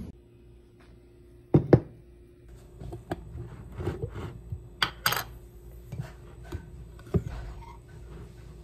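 Two sharp knocks of a glass jar of honey citron tea being set on a kitchen countertop, then a run of lighter clinks and taps as the jar is handled and opened beside a ceramic mug, over a faint steady hum.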